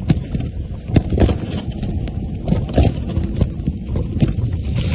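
Mountain bike descending a rough dirt trail: tyres rumbling over the ground and the bike rattling, with sharp knocks over bumps and wind on the microphone.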